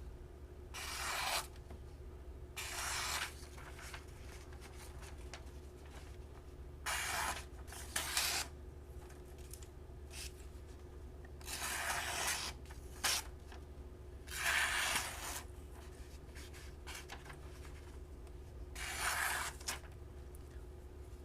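Folding knife blade slicing through thin yellow pages paper, about eight separate cuts, each a short papery hiss.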